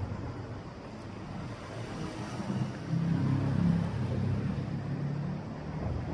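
A motor vehicle's engine humming nearby, swelling a little over two seconds in and easing off toward the end, over a steady outdoor hiss.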